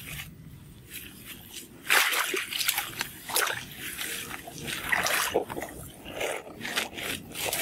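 Shallow muddy water splashing and sloshing as hands grope inside a bamboo plunge-basket fish trap, in irregular bursts that start about two seconds in.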